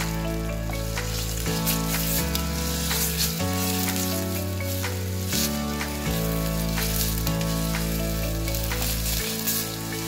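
Chopped vegetables and a red paste sizzling in hot oil in a stainless steel pot, stirred and scraped with a wooden spoon, with crackling ticks through the sizzle. Soft background music with held chords plays underneath.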